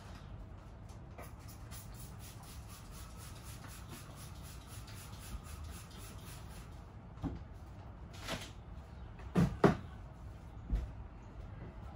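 Handling knocks and clatter, with one short hiss of a trigger spray bottle of degreaser squirting about eight seconds in and two sharp knocks a second later, the loudest sounds.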